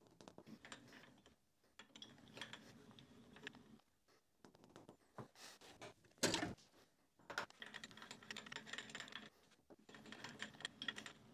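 Faint clicking and rattling from a bench milling machine's table handwheel and leadscrew being cranked in several short spells, with one louder knock about six seconds in.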